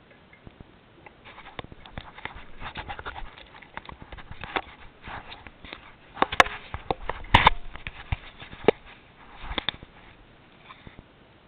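Irregular knocks, clicks and rattles from a camera mount jolting as the ATV rides over a rough snowy track, loudest in a cluster of sharp knocks about six to eight seconds in.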